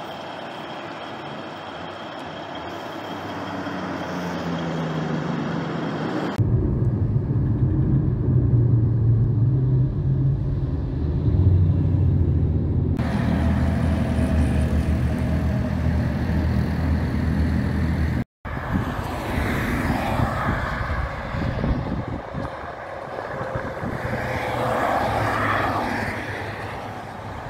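Cabover semi-trucks passing along roads and highways, with diesel engine and tyre noise. About six seconds in the sound switches to a heavy truck engine running loud and low. The sound changes abruptly a few more times, and near the end another truck passes with traffic noise that swells and fades.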